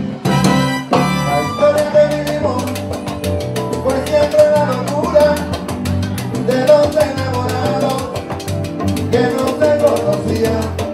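Live Cuban salsa (timba) band playing, with drum kit, percussion and bass driving a dense rhythm. A male lead voice sings over it in the second half.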